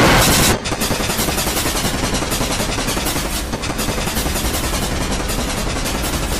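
Harsh, heavily distorted audio from a 'G Major' effects edit: a loud, bright burst of static in the first half-second, then a dense, even wash of distorted noise with no recognisable tune.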